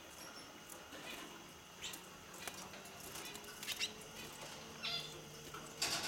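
Caged hooded siskins giving short, sharp chirps now and then, about five in six seconds, over a faint steady low hum.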